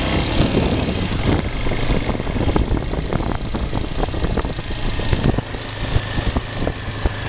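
Motorcycle engine running steadily while riding a rough dirt track, with frequent short knocks and rattles from the bumps.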